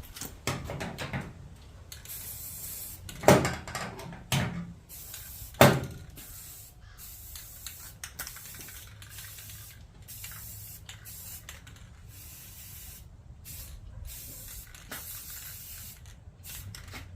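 Aerosol spray-paint can spraying in short, repeated bursts of hiss, with three loud knocks in the first half.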